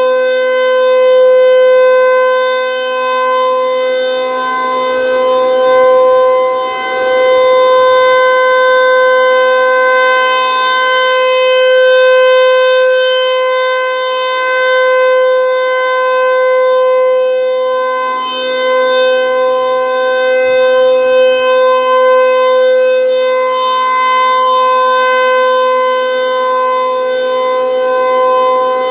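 Federal Signal 508-128 electromechanical outdoor warning siren sounding the alert signal: one steady, unchanging pitch held throughout, loud, swelling and fading every few seconds as the rotating siren head sweeps past.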